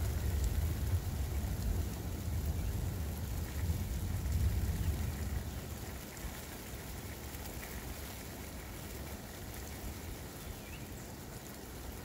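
Steady rain falling on a street and parked cars, a constant hiss. A low rumble underneath fades away about halfway through.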